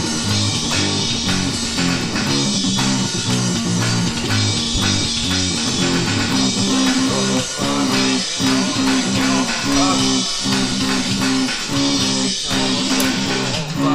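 Rock music with electric guitar and a prominent bass guitar playing a steady riff.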